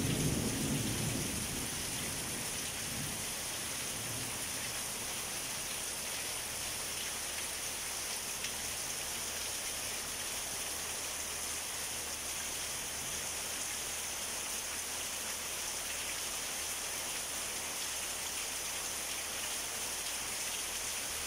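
Heavy rain pouring steadily, with the low rumble of a thunderclap dying away over the first couple of seconds.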